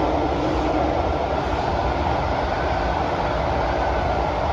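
Running noise heard inside a Kawasaki–CRRC Sifang CT251 metro car travelling through a tunnel: a steady rumble of wheels on rail with a faint steady whine.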